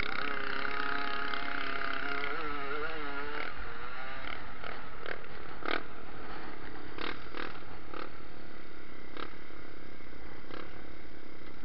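Pit bike's small single-cylinder engine running under the rider, its pitch wavering and dipping after a couple of seconds as the bike slows. The note then falls back lower, broken by a series of sharp knocks.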